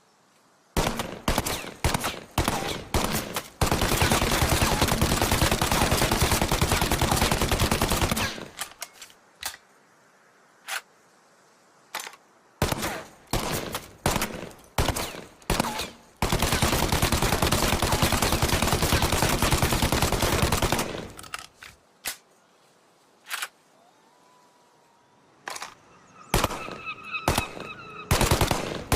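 Thompson submachine gun (tommy gun) firing: a few short bursts, then two long runs of rapid automatic fire of about four to five seconds each, with scattered single shots and short bursts between and after.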